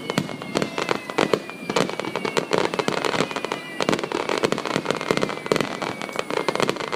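Aerial fireworks bursting and crackling in rapid, dense succession, many sharp bangs close together, with faint falling whistling tones in the first few seconds.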